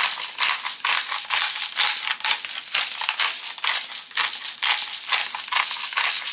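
Salt and pepper grinder being twisted by hand, a fast, unbroken run of dry crunching clicks.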